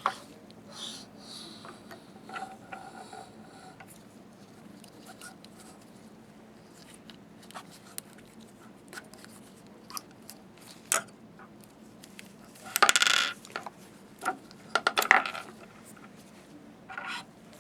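Small metal slit-lamp parts clinking and scraping as they are handled and the end pieces are pushed out. Light scattered clicks, with louder clusters of clinks about two-thirds of the way through and again near the end.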